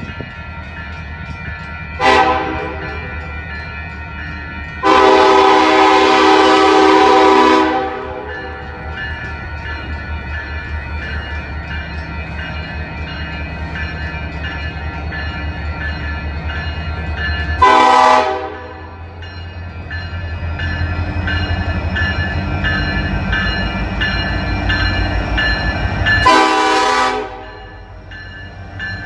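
Union Pacific diesel freight locomotive sounding its air horn four times: a short blast, a long blast of about three seconds, then two more short blasts. Between the blasts the locomotive's diesel engines run with a steady low throb that grows louder from about two-thirds of the way through as the slow-moving train draws near.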